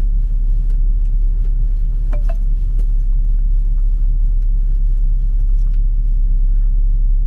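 Steady low rumble of a 2012 Ford Focus automatic being driven, engine and road noise only. No suspension clunk is heard through the turns now that its strut-top plane bearings have been replaced.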